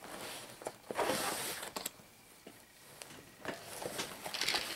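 Rustling and light clicks of gear being handled and rummaged through in a nylon backpack, with brief scrapes and taps. There is a louder rustle about a second in, a quieter pause, then more rustling and clicks near the end.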